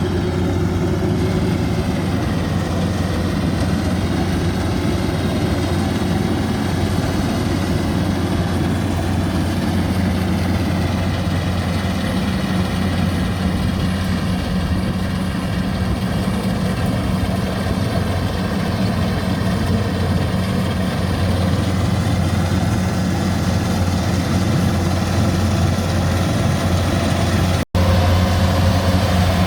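Rice harvester's engine running at a steady pitch, a constant low drone. Near the end it cuts out for an instant and comes back slightly louder.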